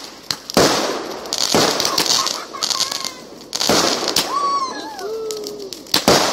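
Aerial fireworks going off: four loud sharp bangs of bursting shells and a few smaller pops, with crackling between them. A few high cries rise and fall between the bangs, the clearest about four seconds in.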